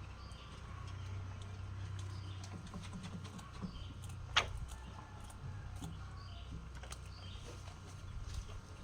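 Faint background with a steady low hum and scattered faint bird chirps; one short sharp sound about four seconds in stands out.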